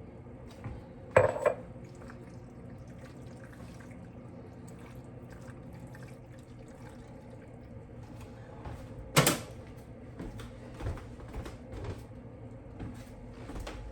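Kitchen handling sounds: two sharp clanks of dishes or utensils, one about a second in and a louder one about nine seconds in, with lighter knocks and clicks toward the end over a steady hum.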